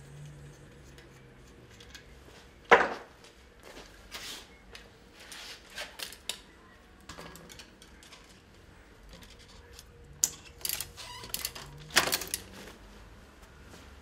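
Scattered clicks, knocks and clatter from a bicycle wheel and tools being handled during a tyre change, with one sharp knock about three seconds in and a quick run of knocks near the end.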